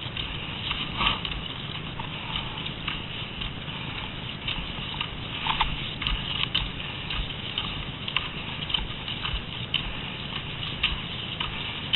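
Cross-country skis sliding over packed snow and ski poles planting, heard as irregular crisp crunches and scrapes over a steady low rumble.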